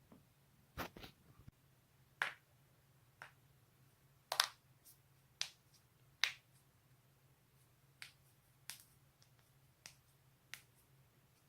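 Joints cracking: about a dozen sharp pops at irregular intervals, a few in quick succession about a second in, the loudest near the middle.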